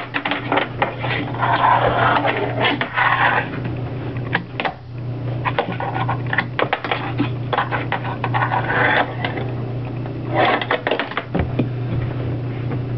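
Tech Deck fingerboard clicking and clacking as it is pushed and popped on a tabletop, its small wheels rolling in rattling stretches between the sharp snaps of the board, over a steady low hum.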